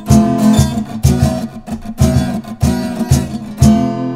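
Music: an acoustic guitar strumming chords in a steady rhythm, about two strokes a second, between sung lines of a song; the last chord, about three and a half seconds in, is left ringing.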